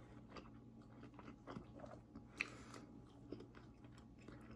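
Faint chewing of a chicken pot sticker with the mouth closed: soft wet mouth sounds and small clicks, one sharper click about two and a half seconds in.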